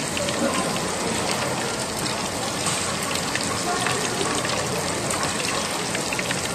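Hot oil in a deep fryer sizzling steadily with fine, rain-like crackling, under faint background voices.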